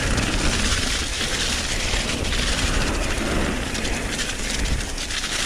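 Santa Cruz Bronson full-suspension mountain bike descending a dirt trail at speed: tyres rolling over dirt and the bike's chain and frame rattling continuously, with wind rumbling over the action camera's microphone.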